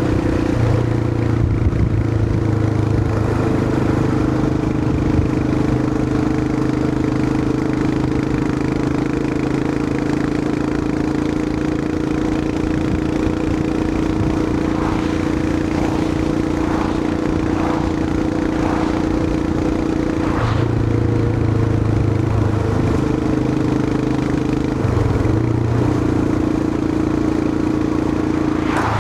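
Royal Enfield Himalayan 411's single-cylinder engine running steadily under way, with wind rush; its engine note changes pitch several times in the last third, as with throttle or gear changes.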